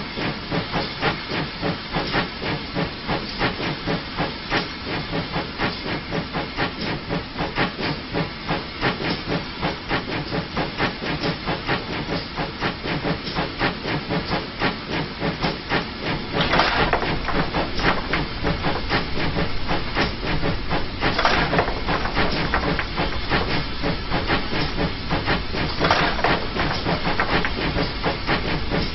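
GWR 0-6-0 pannier tank steam locomotive working, with a steady rapid rhythm of exhaust chuffs and steam hiss. About halfway through it gets louder with a deeper rumble, and three louder bursts of hiss stand out.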